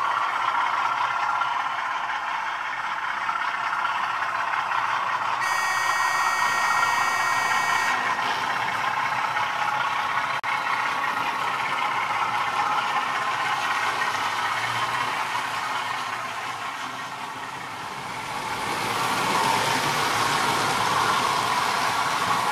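Model railway freight train running: locomotive motors and wheels on the track give a steady whirr, with a high whine for about two and a half seconds around a quarter of the way in. The whirr fades a little about three-quarters of the way through, then grows louder again.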